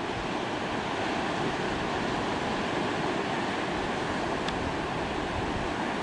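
Ocean surf: a steady wash of waves breaking along the shore and around rocks.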